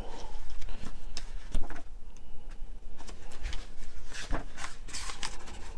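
Pages of a printed book being turned by hand: a run of short paper rustles, flaps and ticks.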